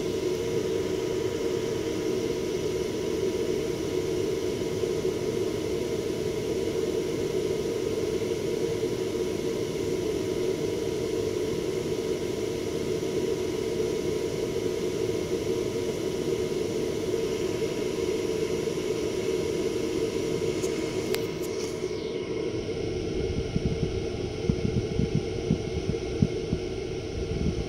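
Cooling fans of a Barco Series 4 laser cinema projector running steadily, a constant whooshing hum with a faint steady whine in it. Irregular low thumps come in over the last few seconds.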